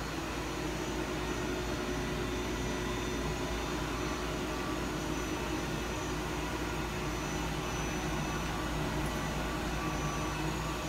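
Steady mechanical hum with a few constant tones from a powered-up DMG Gildemeister NEF 400 CNC lathe, with no axis or turret movement heard.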